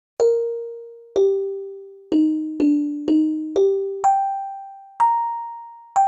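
Xylophone playing a simple melody of single struck notes, eight in all, each ringing briefly and fading before the next. The notes step down for the first few, then climb back up to higher notes near the end.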